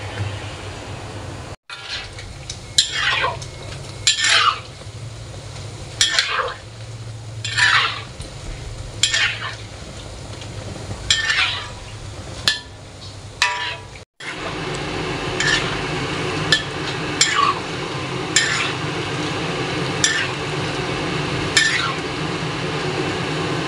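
A metal spatula stirs and scrapes gemat (luqaimat) dough balls around a wok of hot oil, over the steady sizzle of deep-frying. Each stroke is a short scrape falling in pitch, coming about every second and a half. The sound drops out briefly twice, and the sizzle is louder after the second gap.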